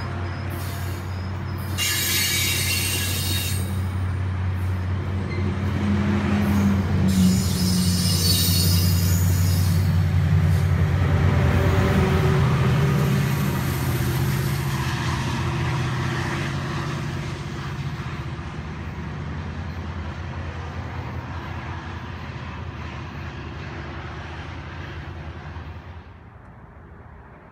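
Caltrain push-pull train passing close by: the bilevel coaches roll past over a steady diesel engine hum, which grows loudest as the trailing MP36PH-3C locomotive goes by about halfway through and then fades as the train pulls away. Two short bursts of high wheel squeal come early on, about two and seven seconds in, and the sound drops off sharply near the end.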